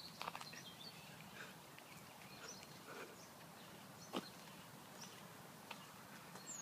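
Quiet outdoor ambience, close to silence. A few faint scattered ticks and rustles are heard, with one sharper click about four seconds in.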